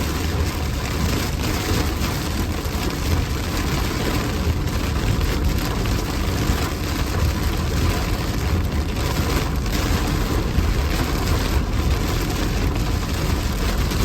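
Strong storm winds and rain battering a moving car: a steady, loud rushing noise with a heavy low rumble.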